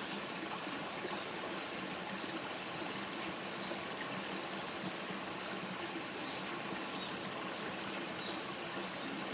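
Stream water flowing and trickling steadily, with a few faint high chirps now and then.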